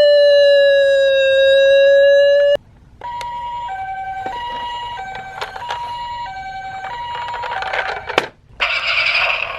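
Electronic siren of a toy ambulance: a wailing siren tone that slides slowly and cuts off suddenly about two and a half seconds in. After a short pause comes a two-tone hi-lo siren, the Japanese ambulance "pee-po" pattern, alternating between a higher and a lower note about once a second, with a few light clicks. A noisier hissing sound comes in near the end.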